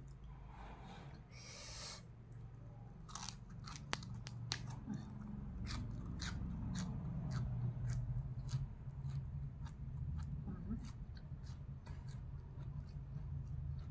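A person chewing raw green vegetables close to the microphone, with many sharp crisp crunches. A brief rustle of the leafy stems being pulled apart comes near the start.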